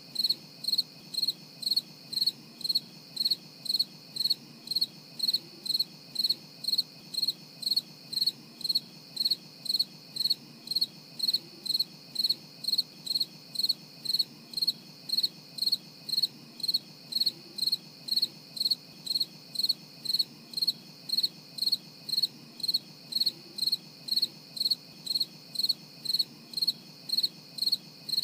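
An insect chirping steadily in a regular rhythm: short, clear, high-pitched chirps about twice a second.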